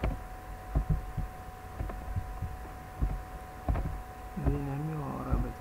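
Soft, irregular low thumps of mouse clicks picked up by the computer's microphone, over a steady electrical whine at two fixed pitches. Near the end comes a short hummed voice that wavers in pitch.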